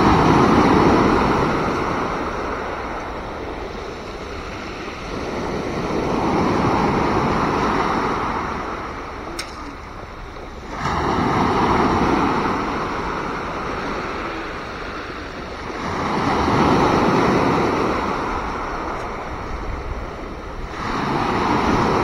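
Sea waves breaking on the beach and washing back, swelling and ebbing in a slow rhythm about every five seconds. A single brief click a little before the middle.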